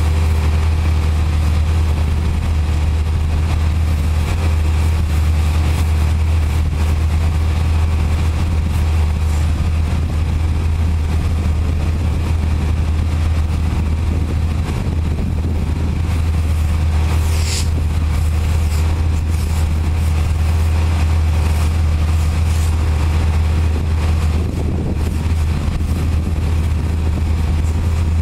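An engine running steadily at idle, with the hiss of a pressure-washer wand spraying water onto a truck's wheels, and one brief high squeak about two-thirds of the way in.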